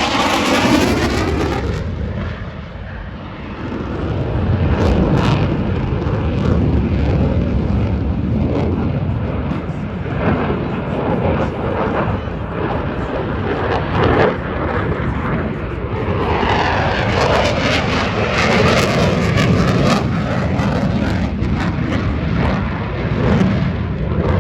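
F-16 fighter jet flying past, its engine a loud, steady rushing roar that dips briefly about two seconds in and then swells again and holds.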